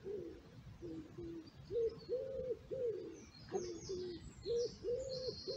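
A pigeon cooing over and over in a run of short, low notes, with a small bird chirping high above it from about halfway through.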